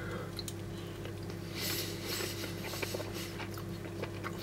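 A person chewing a hot mouthful of cauliflower cheese: faint soft mouth clicks and a breathy hiss about a second and a half in, over a steady low electrical hum.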